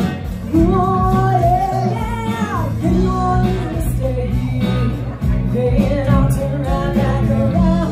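Live band playing a song: a woman sings the lead vocal over electric guitar, acoustic guitar and bass guitar.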